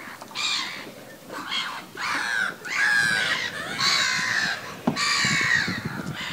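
A bird calling repeatedly, about five drawn-out calls that each slide down in pitch, with a single knock about five seconds in.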